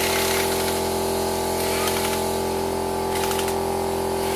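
Compressed-air blow gun hissing in bursts over a washed engine block, blowing it dry, over a steady machine hum.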